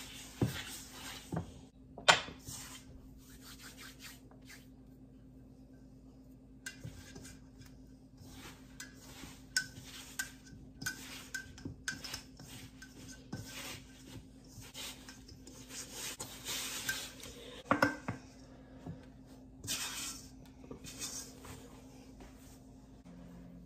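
Biscuit dough being mixed by hand in a bowl: a utensil scraping and knocking against the bowl in uneven strokes, with a short pause and a couple of sharper knocks.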